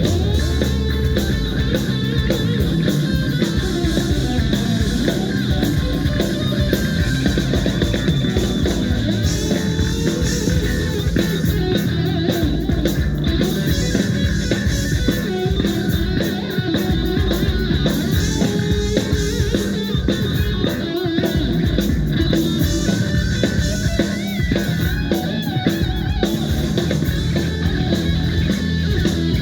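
Live rock band playing an instrumental passage: electric guitar over drum kit and bass, loud and steady.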